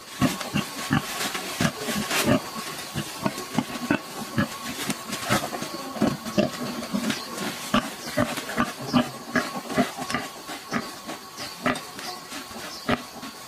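A domestic sow and her newborn piglets grunting in many short, quick calls while moving through dry leaf bedding.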